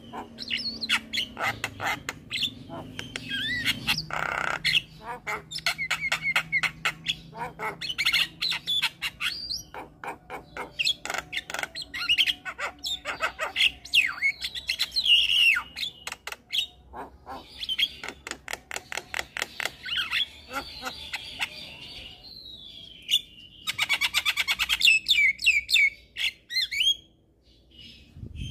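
Javan myna singing a long, varied song: rapid rattling runs of clicks, harsh squawks and whistled gliding notes, with a short pause near the end.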